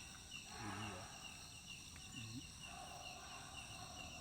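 Forest insects chirping: one repeats a short, high chirp at an even rhythm, about two to three a second, over a steady, higher insect drone.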